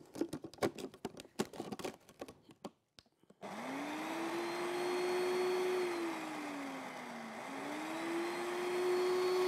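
A run of light clicks and knocks, then a countertop electric blender switched on about three and a half seconds in: the motor whines up to a steady hum as it beats oil, milk and sugar into a chocolate sauce base. Partway through its pitch sags, then climbs back.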